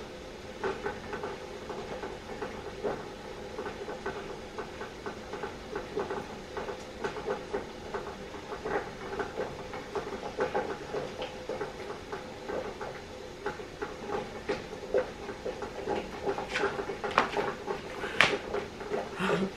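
Melted candle wax trickling from a metal pouring pitcher into glass candle jars: a soft, irregular pattering stream. A few louder knocks and clinks come near the end.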